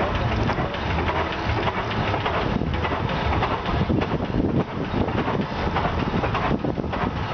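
Big Four kerosene-burning farm tractor of about 1910, its large four-cylinder engine running steadily at low speed with an uneven low chugging.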